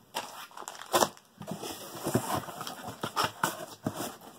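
Subscription-box products and their packaging being handled and moved: irregular rustling and crinkling with a few light knocks, the sharpest about a second in.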